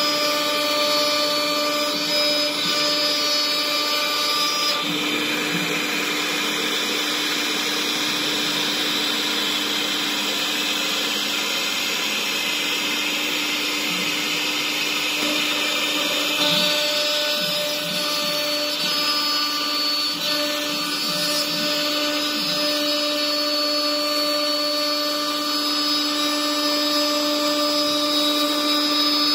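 CNC router spindle running at speed with its bit cutting through 18 mm particle board: a steady high whine over the rasping noise of the cut.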